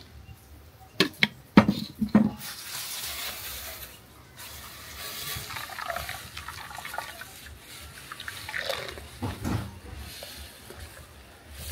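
Water running and splashing in a kitchen sink, with a few sharp knocks of kitchenware one to two seconds in.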